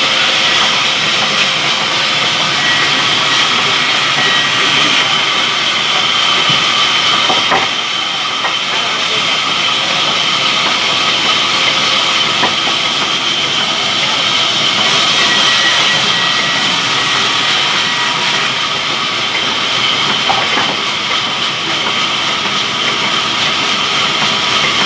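Sawmill saw cutting wood, a loud steady hissing noise with a high whine held at one pitch.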